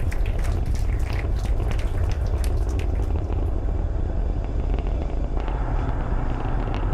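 Falcon Heavy's 27 Merlin 1D rocket engines during ascent: a deep, steady rumble with crackling that thins out about three seconds in.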